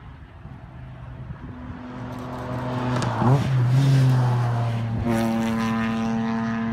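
A tarmac rally car's engine going past at speed, growing louder to its peak about three to four seconds in, with a quick swing in pitch as it passes, then a steady engine note. About five seconds in the sound changes abruptly to another steady, higher engine note.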